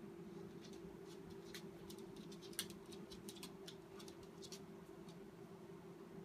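Faint, irregular clicks of a corgi puppy's claws on a laminate floor as it walks about, one sharper click near the middle, over a steady low hum.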